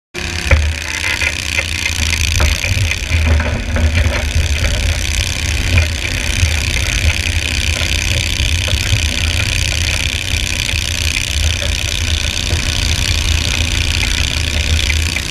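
Garden tractor engine running loud and steady, with a deep low rumble and a few sharp clicks in the first few seconds.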